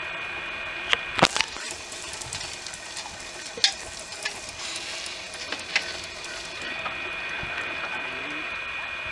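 Small road roller moving slowly along a path, with a scatter of sharp clanks, the loudest cluster about a second in, over a steady high whine. A hiss comes in with the first clanks and fades out about two-thirds of the way through.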